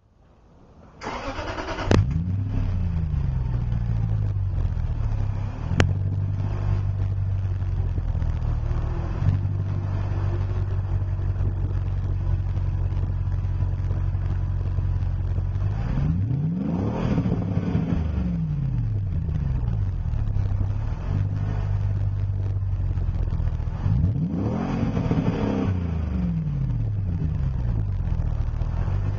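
2006 Land Rover LR3 HSE's V8 through a MagnaFlow aftermarket exhaust: it cranks and catches about two seconds in, then settles to a steady idle. It is revved up and let fall back twice, about halfway through and again near the end.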